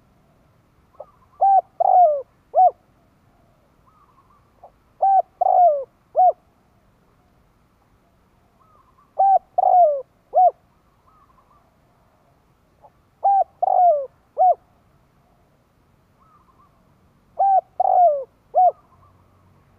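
Spotted dove cooing its territorial song: five phrases, one about every four seconds, each a soft lead-in followed by quick coos, a longer falling coo and a short final note.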